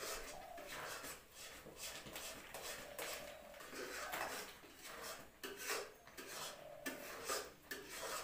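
Metal spoon scraping and stirring cooking semolina around a metal wok, in uneven scraping strokes, roughly one or two a second.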